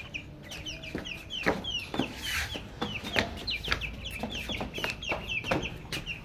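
Young chickens peeping: a continuous run of short, high peeps, each sliding downward in pitch, about three a second.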